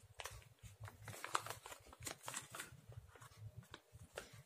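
Faint, irregular crinkling and small clicks of a sheet-mask packet being torn open and handled by hand.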